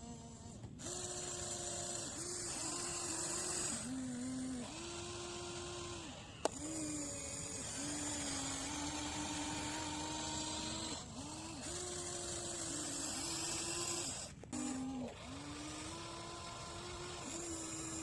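Radio-controlled excavator's small electric motor whining, its pitch dipping briefly and shifting every second or two as the machine works under changing load, with a sharp click about six seconds in.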